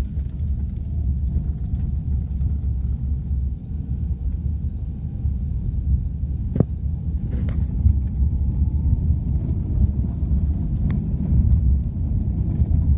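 A car's engine and tyres give a low, steady rumble, heard from inside the cabin as it drives slowly. There is a single sharp click about six and a half seconds in.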